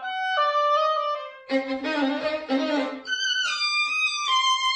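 Violin melody played as a backing track: slow, held notes that jump higher about three seconds in and then step downward.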